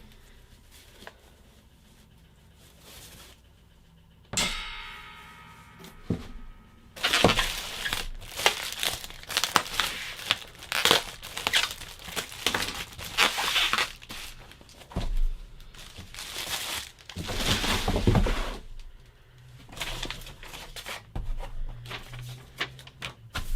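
Packaging being crinkled, rustled and torn by hand while a stainless steel filter chamber is unwrapped, in dense irregular bursts through most of the second half. A short pitched scrape or squeal comes about four seconds in.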